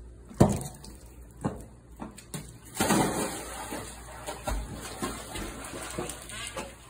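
Pool water splashing as a German shorthaired pointer goes in after a ball: two sharp splashes in the first second and a half, then a bigger splash and steady churning and sloshing as the dog paddles with the ball in its mouth.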